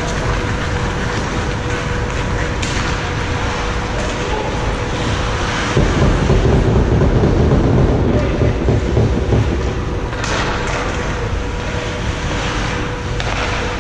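Indoor ice hockey rink during play: a steady rumbling noise with a faint steady hum, swelling louder for a few seconds about halfway through, with a few sharp knocks near the end.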